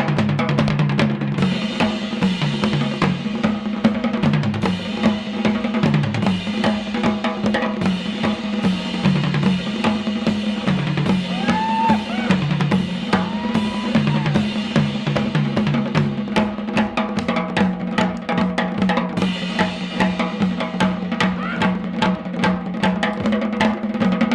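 Instrumental 1970s rock band music led by a busy drum kit, with bass drum, snare and rimshots, over a repeating bass line. A few short bending lead notes come in about halfway through.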